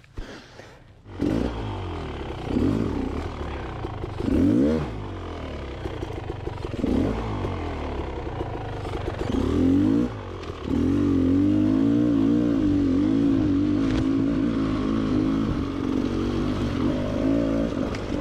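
Two-stroke engine of a Beta XTrainer 300 dirt bike, coming in about a second in and revved in several rising-and-falling blips, then running steadily at higher revs from about ten seconds in.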